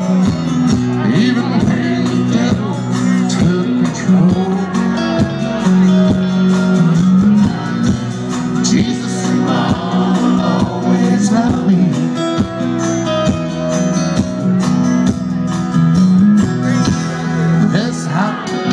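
Live country band playing full-on through the stage PA: electric and acoustic guitars, bass and drums, heard from within the crowd.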